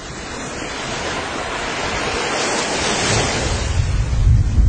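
Volcanic explosion: a rushing noise that grows steadily louder, then a deep rumble from about three seconds in as the summit crater bursts, throwing out glowing lava bombs.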